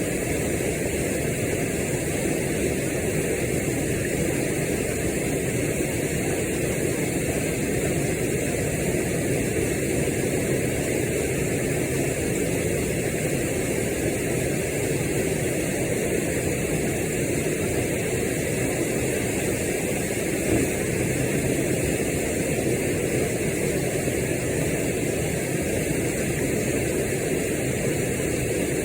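Waterfall water rushing in a steady, unbroken noise.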